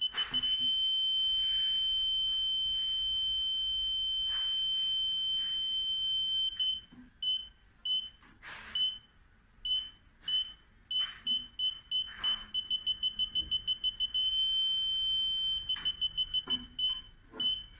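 Car parking sensor buzzer sounding one high tone: quick beeps run together into a continuous tone for about six seconds, break into spaced beeps that quicken again into a second, shorter continuous tone, then go back to beeps that slow near the end. The beeps come faster as the obstacle gets closer to the sensors, and the unbroken tone means it is in the closest range. A few brief swishes are mixed in.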